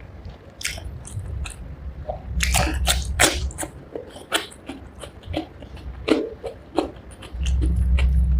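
Close-up eating sounds of rice with fish curry: wet chewing and lip smacks with many short clicks, and heavier low thuds about two and a half seconds in and again near the end.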